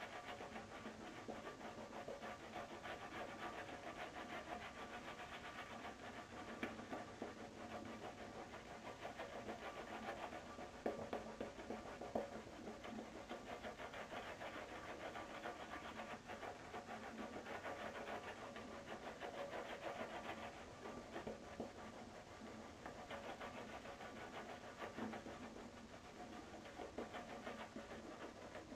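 Silvertip shaving brush working shaving lather over a face: a continuous wet, squishy swishing of quick brush strokes, with a few louder swishes now and then.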